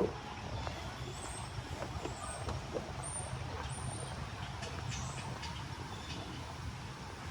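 Steady low rumble of city traffic, with a few short high chirps between about one and five seconds in and a brief knock right at the start.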